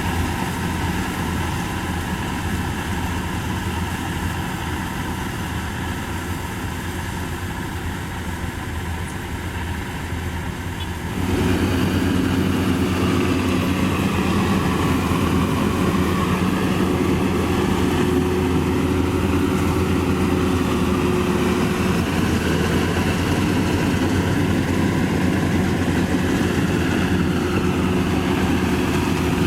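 Maxxi Bimo 102 rice combine harvester's engine running steadily under work, with a low, even drone. It becomes abruptly louder and fuller about eleven seconds in, then holds steady.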